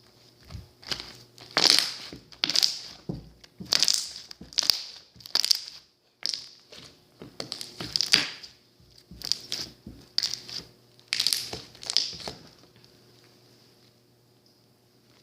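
Slime being squeezed and pressed by hand, a run of crackly, crunchy squishes about one a second that stops near the end.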